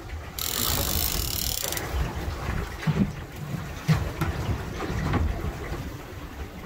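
Wind buffeting the microphone and water slapping a small boat's hull, with a short high hiss lasting just over a second about half a second in. A few dull knocks follow from about three seconds in.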